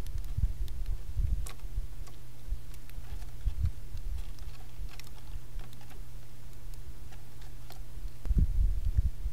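Sparrows pecking seed on a wooden bird-feeder tray: scattered sharp taps and clicks over a steady low rumble, with a cluster of heavier low thumps near the end.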